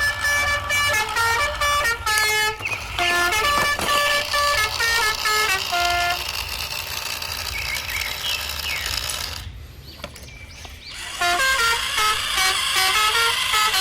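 A quick tune of short, bright horn-like notes stepping up and down in pitch; it gives way to a fainter, hissier stretch with a few gliding tones, drops low for about a second, then the stepped notes start again.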